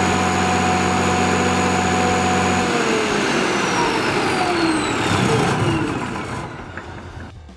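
Cummins 6BT 5.9 L inline-six turbo diesel on an 80 kW Kohler generator set running at steady speed, then shut off about three seconds in. Its pitch falls as it winds down, fading out near the end.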